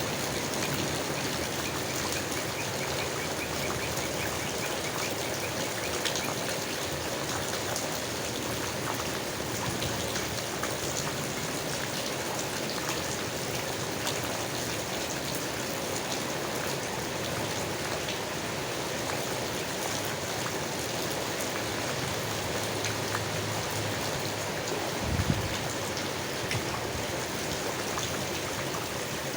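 Steady rain falling on leaves: an even hiss of many small drop ticks. A brief low thump comes near the end.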